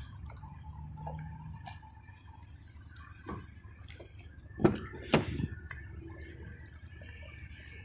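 Two loud sharp knocks about half a second apart, past the middle, with a fainter one just before, over a low steady rumble.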